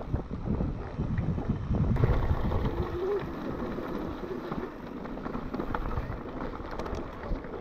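Wind buffeting the microphone during a mountain bike ride, with irregular clattering from the bike over a rough, rocky trail.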